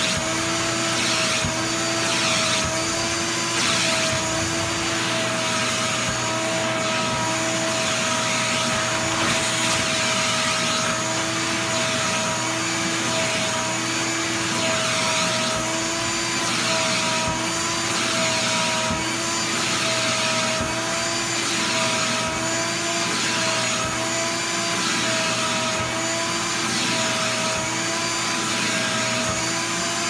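Ridgid 12-gallon wet/dry shop vacuum running steadily with a motor whine, its hose wand pushed back and forth over a rug picking up debris. The suction hiss swells and falls about once a second with the strokes.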